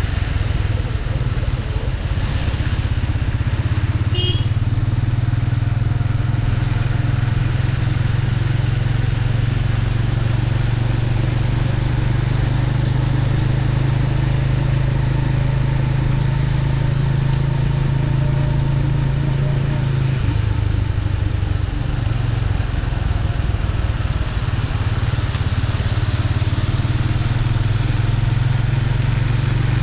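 Motorcycle riding along at a steady speed, heard from the bike itself, its engine a steady low drone under a rush of wind and wet-road hiss. About two-thirds of the way through the drone eases and wavers for a few seconds, then settles again.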